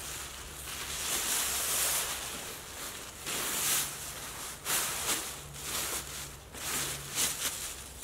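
Black plastic bin bag crinkling and rustling in repeated handfuls as a wet tent is stuffed into it.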